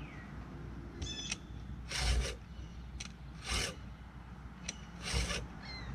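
STIHL 2-in-1 chainsaw sharpener rasping along the chain's teeth, its round file sharpening the cutters while the flat file takes down the depth gauges. Three strokes about a second and a half apart, each with a light click just before it.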